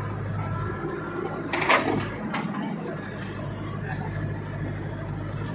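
Diesel engine running steadily, with one brief loud clatter about a second and a half in.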